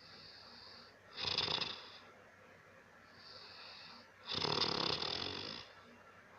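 A person snoring loudly: a snore about a second in and a longer one of over a second about four seconds in, each preceded by a quieter, wheezy breath.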